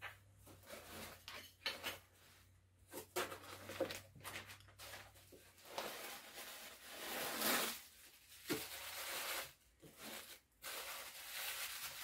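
Plastic packaging and tissue-paper wrapping rustling and crinkling as they are handled in a cardboard box, in uneven bursts with small knocks, louder in the second half.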